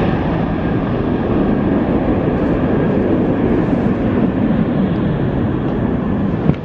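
Steady, loud jet rumble from a Bombardier CRJ700 regional jet's two rear-mounted turbofans as it flies away on final approach, with a short click near the end.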